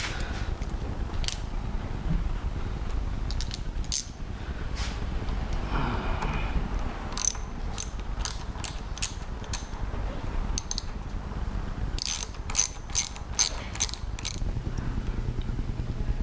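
Ratchet wrench clicking as a Loctited bolt is run down and tightened, in a couple of quick runs of clicks with scattered single clicks and knocks between them.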